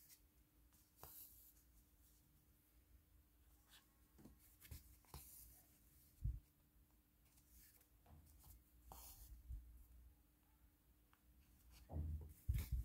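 Faint rustling and scratching of a needle and thread being drawn through embroidery canvas, with a few soft knocks against the table, the loudest near the end.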